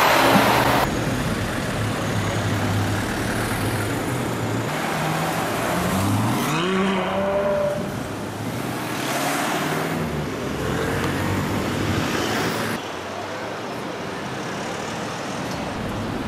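Street traffic with a car engine revving up as it pulls away, its pitch rising about six seconds in and again near ten seconds.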